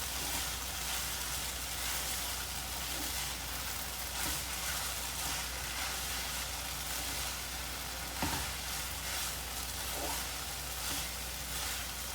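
Fried noodles and garlic chives sizzling in a hot pan as they are stirred, with a steady hiss and a few light knocks of the utensil against the pan.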